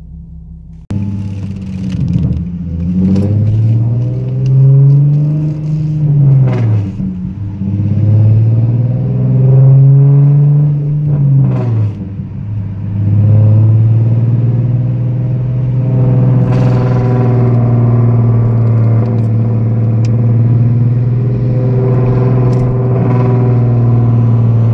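Nissan 370Z's 3.7-litre V6 through a custom aftermarket exhaust, heard from inside the cabin while driving. The engine note rises and falls twice as the car accelerates and eases off, then settles into a steady drone. A gap in the exhaust that had been leaking has been sealed.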